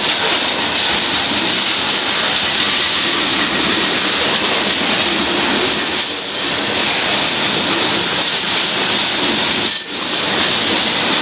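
Union Pacific freight train's loaded hopper cars rolling past close by: a loud, steady clatter of steel wheels on rail. A brief high squeal comes twice, about six and ten seconds in.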